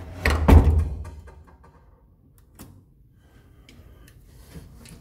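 Wooden apartment door shutting with a loud thud about half a second in, followed by a few faint clicks.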